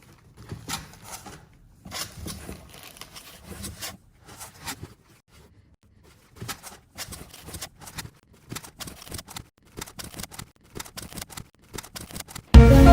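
Packaging being opened by hand: irregular rustling, crinkling and tearing of wrapping, in many short crackles. Near the end a loud burst of music cuts in.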